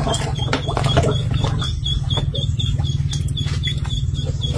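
Hollow clay bricks knocking and scraping as they are lifted out of a plastic basin and set down in shallow water, with a few sharp knocks. Underneath runs a steady low hum, and a high chirp repeats about four times a second.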